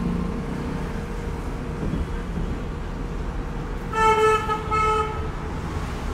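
Road traffic running steadily, with a vehicle horn giving two short toots about four seconds in.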